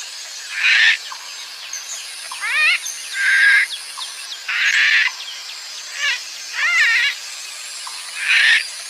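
Parrot squawking repeatedly: about seven harsh calls, each under a second, some of them wavering up and down in pitch.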